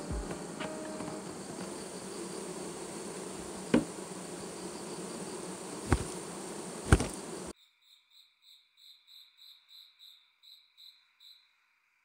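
Honeybees buzzing around an open hive, with three sharp knocks about four, six and seven seconds in, the loudest sounds. The buzz cuts off suddenly past the middle, leaving faint, evenly spaced high chirps, about three a second.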